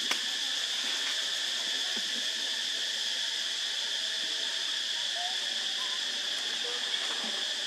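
Insects droning steadily at a high pitch, with a sharp click just after the start and a few faint short chirps.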